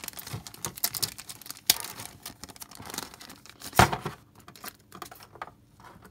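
Clear plastic wrapper crinkling and tearing as a stack of game cards is unwrapped, with two louder snaps about two and four seconds in. After that it settles into quieter scattered clicks of card handling.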